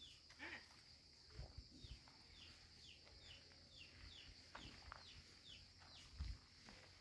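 Faint bird chirping: short falling notes repeated about twice a second over a steady high-pitched drone, with a few soft footsteps on a dirt path.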